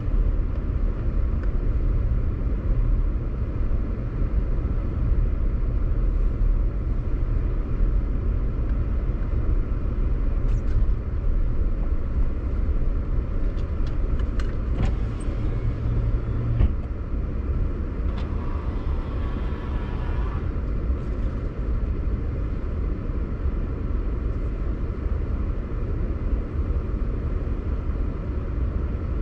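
Steady low rumble of a car's engine and tyres on the road, heard from inside the cabin while driving, with a few faint clicks.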